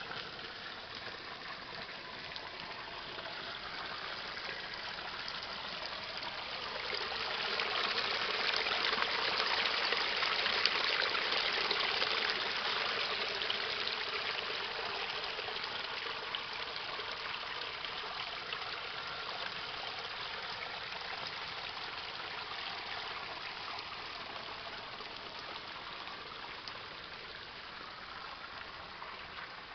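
Small rocky woodland stream, water trickling and rippling over stones. It swells louder partway through, where the water runs over a small riffle, then slowly fades again.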